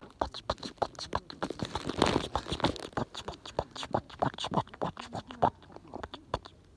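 Bonfire crackling: burning wood giving irregular sharp pops and snaps, several a second.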